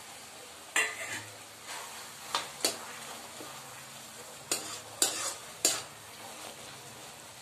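Metal spoon stirring and scraping thick carrot halwa in an aluminium kadai, knocking sharply against the pan about six times at uneven intervals. A low, steady sizzle of the cooking mixture runs underneath.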